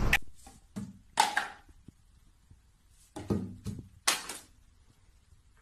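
A few separate thuds and clatters a second or so apart, like plastic toiletry bottles being knocked over on a bathroom shelf.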